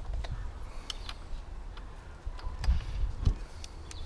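Scattered light metallic clicks and ticks as small 10mm nuts and a socket are handled and fitted by hand onto a lawnmower's plastic recoil starter housing, over a low rumble.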